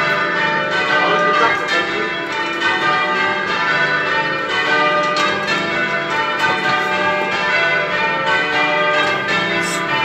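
Change ringing on a ring of eight church bells with a tenor of about 20 cwt in D: the bells strike one after another in a steady, even rhythm, their tones overlapping.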